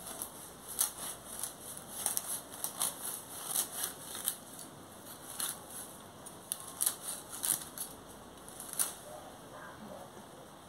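A long-bladed knife cutting through a thick bunch of green marigold (cempasúchil) stems: a run of crisp, irregular snipping cuts that stop about nine seconds in.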